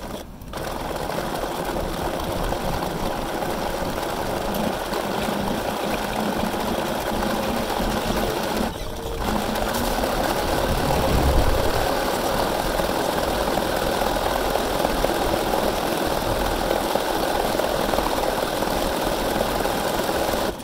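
Bernina sewing machine running at a steady speed, stitching through coiled cotton clothesline rope to build up the wall of a rope bowl. It stops briefly about nine seconds in, then runs on.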